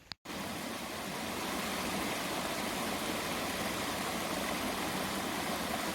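Steady rushing of running water from a stream, starting abruptly a moment in after a cut and holding even, with no engine note in it.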